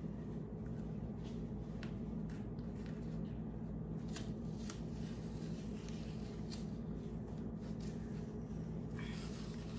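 Small handling noises: scattered light clicks and rustles, with a short rasp about nine seconds in, over a steady low hum.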